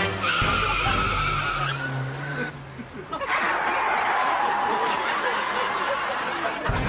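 Tyre-screech skidding sound effect: a squeal for about two and a half seconds, a brief break, then a second, longer screech.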